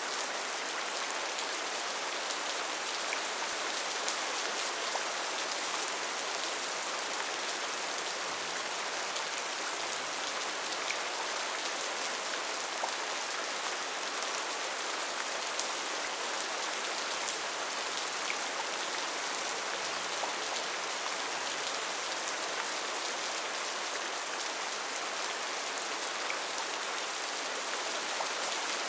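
Steady rain falling on a tin roof: an even hiss with small drop ticks scattered through it.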